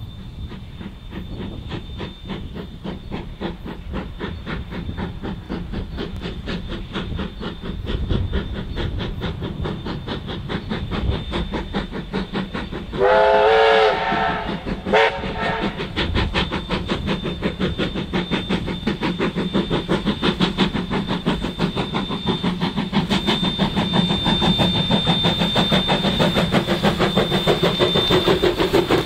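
NZR Ab class 4-6-2 Pacific steam locomotive Ab608 working hard, its rapid, even exhaust beats growing louder. It sounds one long whistle blast about 13 seconds in and a short one about 15 seconds in.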